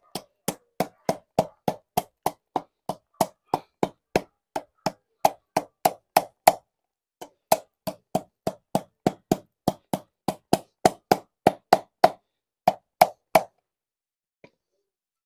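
Claw hammer striking the cut end of a steel car exhaust pipe, folding its cut tabs inward: a steady run of sharp metal blows about three a second. The blows pause briefly about six and a half seconds in, then go on and stop shortly before the end.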